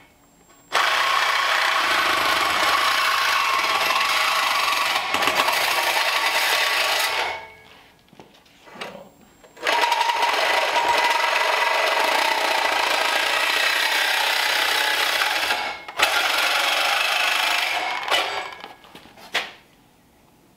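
A power tool cutting into steel exhaust tubing: two steady cuts of about six seconds each, a couple of seconds apart, with a steady whine through each. They are relief cuts that let the pipe close up to correct its bend angle by a few degrees.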